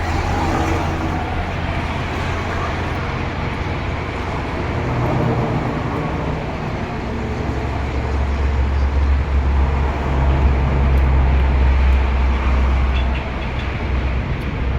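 Strong wind buffeting the microphone: a loud, continuous rumbling rush that builds about halfway through and eases slightly near the end.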